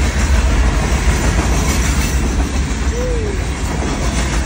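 Freight train of hopper cars rolling past close by: a loud, steady rumble with the clickety-clack of the wheels over the rail joints.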